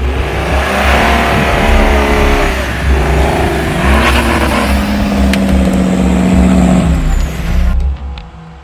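Off-road 4x4 vehicle's engine revving hard, its pitch climbing and falling several times, over heavy low rumble. The sound drops away sharply near the end.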